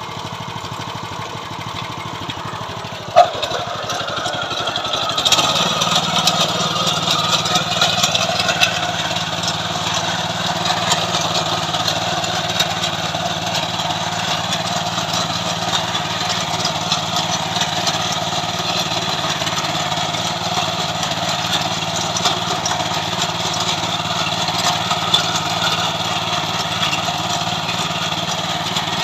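Small engine of a KB-365 mini tiller running, with a sharp clunk about three seconds in. A couple of seconds later it runs louder and deeper, then holds steady.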